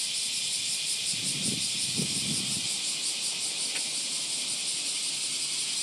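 Loud chorus of cicadas all around, a steady high-pitched drone with a fine, fast pulsing texture.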